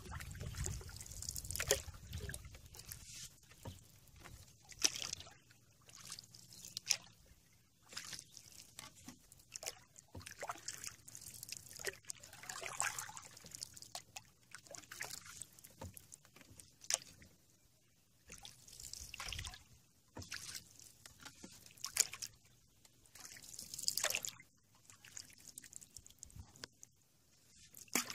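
Canoe paddle strokes in calm water: the blade swishes through and water trickles and drips off it, in irregular swells every few seconds.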